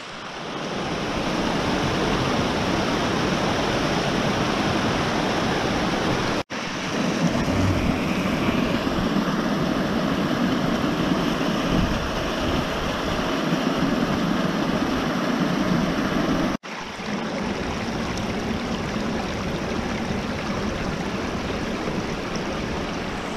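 Water rushing down a small woodland stream over rocks and along a concrete channel, a steady close rush that breaks off for an instant twice.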